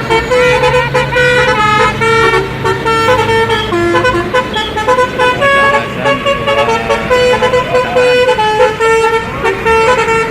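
Tour bus's telolet basuri musical multi-tone horn playing a fast melody of short notes that step up and down in pitch, over a low engine hum.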